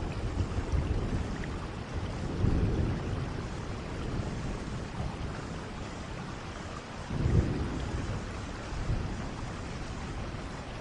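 Steady rain with low rolls of thunder, which swell twice: once a couple of seconds in, and again past the middle.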